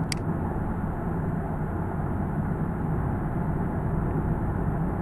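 Steady low rumbling background noise, with one short sharp click just after the start, a mouse button being clicked.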